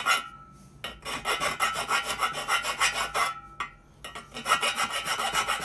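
Hand file rasping back and forth across the cut end of a square metal frame tube on a motorcycle frame, smoothing the stub left where the old subframe was cut off. Quick, even strokes, broken by two short pauses, near the start and about halfway.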